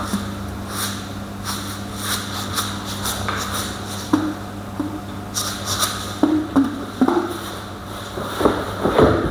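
Steady low hum with scattered knocks, clicks and scrapes of objects being handled, busier in the second half.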